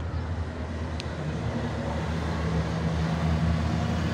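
Low drone of approaching motor vehicles, growing gradually louder, with a brief high chirp about a second in.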